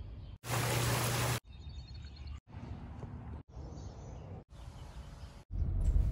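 A string of short everyday sounds spliced end to end, each cut off abruptly after about a second: outdoor ambience in a yard and on a lawn, then a car's engine running near the end.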